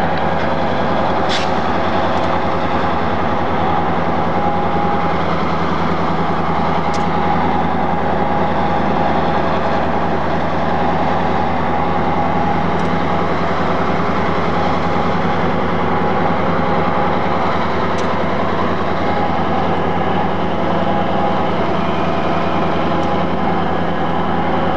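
ConRail hump locomotive's diesel engine running steadily as the set moves a cut of boxcars, with a few faint clicks over it.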